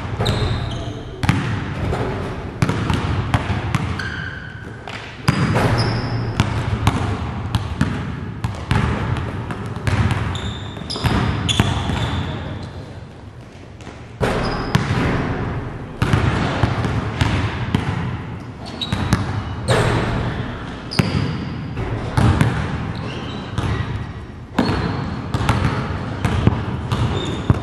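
Basketballs bouncing on a gym court in irregular, repeated thuds, with short high squeaks scattered between them.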